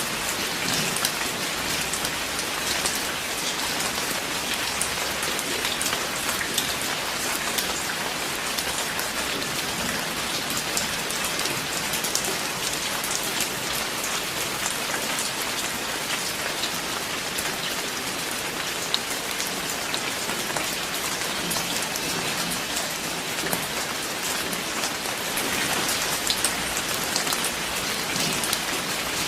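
Steady rain falling, with many small, distinct drop ticks over an even hiss.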